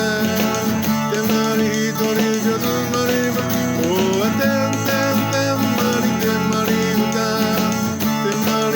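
Instrumental passage of a 1960s-style girl-group pop song, with guitar prominent over a full band and a steady beat.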